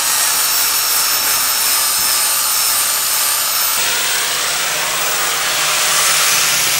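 Power tool running steadily against the boat's hull, a loud whooshing noise with a thin high whine over the first half that changes slightly about four seconds in.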